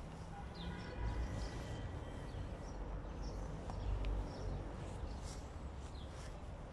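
Outdoor park ambience: a steady low rumble with scattered short bird chirps.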